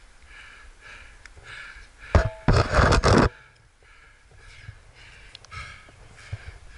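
Rock climbing contact noise: a knock about two seconds in, then about a second of loud scraping and scuffing as the climber's body and the camera rub against the rock.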